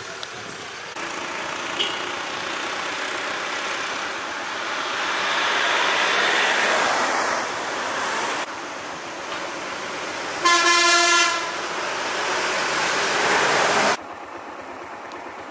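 Road traffic driving past, its noise swelling and fading as vehicles go by. A loud vehicle horn sounds once, for just under a second, about ten and a half seconds in. The traffic noise cuts off suddenly near the end.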